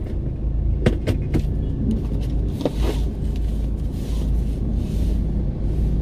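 Low, steady rumble of a car's idling engine heard inside the cabin, with a few light clicks and a brief rustle as someone shifts in the seat.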